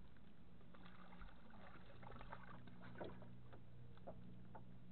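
A small crappie being reeled in on a spinning rod: soft irregular ticks from the reel and line, and small splashes at the water's surface, over a faint steady low hum.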